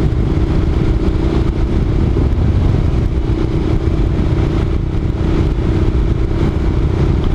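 Honda NC700X's parallel-twin engine running at a steady pace while riding a dirt road, with a heavy low rumble under a constant engine tone.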